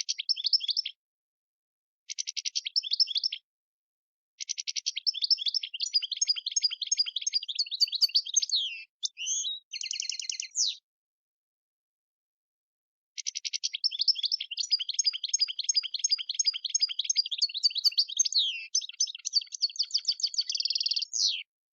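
European goldfinch singing: rapid twittering, trilling phrases in four bursts with short pauses between, the two longest running about six and eight seconds.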